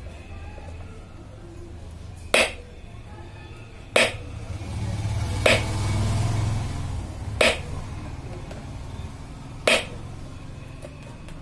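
Five sharp clicks, one to two seconds apart, over a low steady hum that swells for a couple of seconds mid-way.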